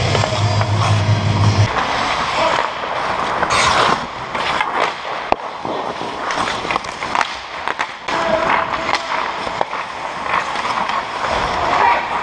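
Ice hockey skates scraping and carving on rink ice, with sharp clacks of sticks and puck scattered throughout.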